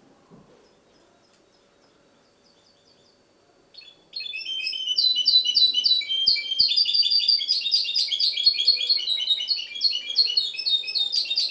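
Goldfinch × canary hybrid (mixto) singing: a few faint notes, then about four seconds in a loud, fast run of twittering song lasting about seven seconds that stops abruptly.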